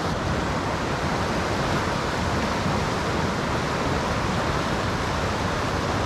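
Fast mountain river water rushing through a whitewater run, a steady, even rush of water.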